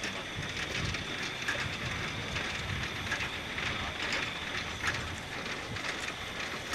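Saxon IV K narrow-gauge steam locomotive working slowly, with uneven exhaust chuffs over a steady hiss of steam escaping at the cylinders.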